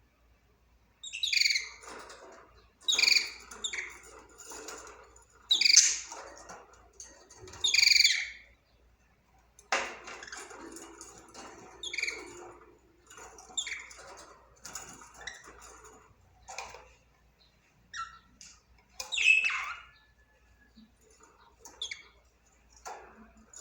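Budgerigar chirping, with loud sharp calls every couple of seconds, then softer chattering warble with one louder call near the end.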